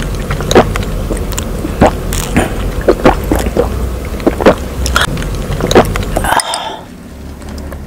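Close-miked biting and sucking on a juicy chunk of watermelon: wet, crackling clicks several times a second. They stop about six seconds in.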